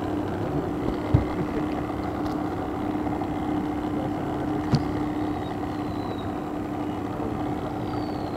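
Small boat engine running steadily, with a constant low hum over a noisy background, and a couple of light knocks against the boat.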